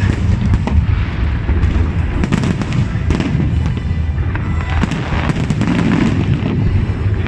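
Fireworks going off in many overlapping bangs and crackles over a steady low rumble.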